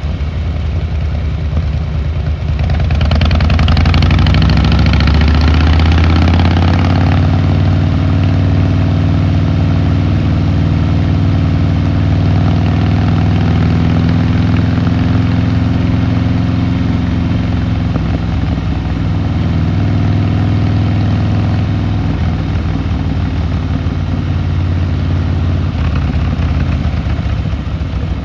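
Harley-Davidson Fat Boy Lo V-twin engine and exhaust under way: it accelerates, rising in pitch from about three seconds in, then holds a steady cruise with the pitch easing slightly.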